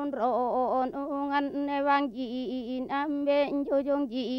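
A woman chanting on one steady reciting pitch, her syllables running on with short dips in pitch between them.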